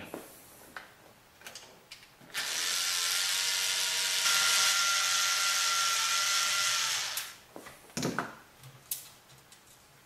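Cordless electric screwdriver running steadily for about four and a half seconds, backing out a Phillips head screw, with a brief change in its tone about halfway through. A few short knocks follow near the end.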